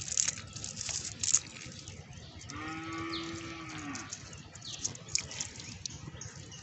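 A cow mooing once, a single steady call of about a second and a half near the middle. In the first second or so there are a few sharp clicks and rustles as a cast net is picked over on gravel.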